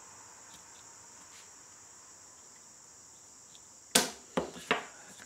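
A wooden paint stir stick with sandpaper glued to it knocks against a concrete floor as it is pressed down: one sharp knock about four seconds in, then two lighter ones. Insects chirr faintly and steadily in the background.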